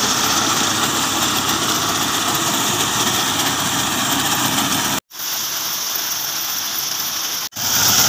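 Fiat 480 diesel tractor engine running steadily while driving a wheat reaper through standing wheat. The sound cuts out abruptly twice, about five seconds in and again about two and a half seconds later.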